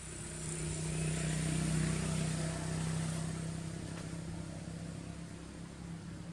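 A passing motor vehicle's engine hum, growing louder to a peak about two seconds in, then slowly fading away.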